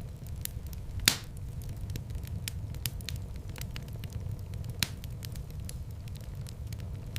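Wood fire burning in a fireplace: a steady low rumble of flames with constant small crackles, and two sharp louder pops, one about a second in and one a little before the five-second mark.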